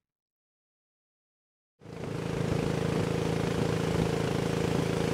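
Near silence for almost two seconds, then a long-tail boat's engine starts up abruptly in the sound and runs steadily under way, with water rushing along the wooden hull.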